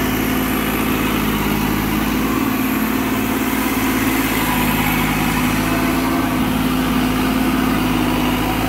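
New Holland 3630 tractor's diesel engine running steadily under load, pulling a Maschio 8-foot super seeder through the field and holding its speed with little rpm drop.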